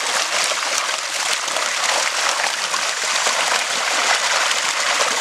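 Crowded Nile tilapia thrashing in shallow water as they are harvested from a broodstock pond: loud, continuous splashing and spattering of water.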